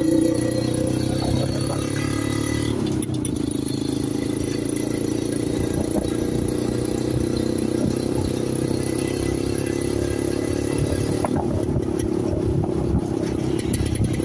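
A motorcycle-driven tricycle's engine runs steadily as it drives along the street, heard from inside the sidecar, with road and traffic noise around it.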